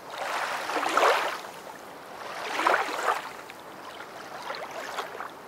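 A rushing, surf-like noise that swells and fades three times, loudest about a second in and again near three seconds, with a weaker swell near the end.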